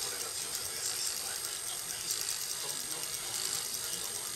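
Scratch-built brass model anchor winch, driven by a small motor on a 4.5 V battery pack, running steadily: a high whirring gear rattle with a fast, even clicking.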